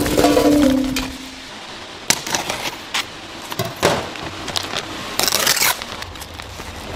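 Water splashing into a stainless-steel food pan for about the first second. Then a few sharp clicks and knocks, and a short rustle of plastic food packaging a little after five seconds in.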